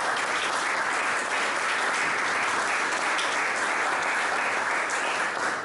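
Audience applauding, a steady round of clapping from a seated crowd in a hall, welcoming a lecturer.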